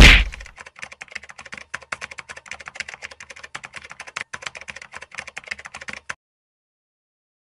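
A sudden loud hit at the start, then a rapid run of keyboard typing clicks, a typing sound effect for text being typed out on screen. The clicks stop about six seconds in.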